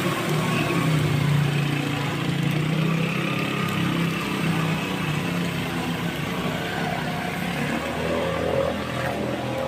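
Small motorcycle engine running as it rides through flood water close by, loudest in the first few seconds and then fading, over a steady wash of water noise. Another motorcycle passes near the end.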